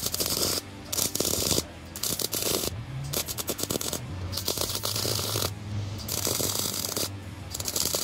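MIG welder (YesWelder MP200) welding steel: the arc crackles and sizzles in a series of short welds, with brief pauses between them as the trigger is released.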